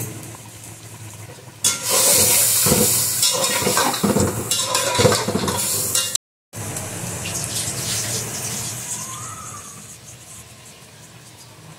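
Meat stock (yakhni) sizzling and bubbling hard over fried meat in an aluminium pot, stirred with a metal spatula. The sizzle starts loud about two seconds in, breaks off briefly past the middle, then goes on quieter and fades toward the end.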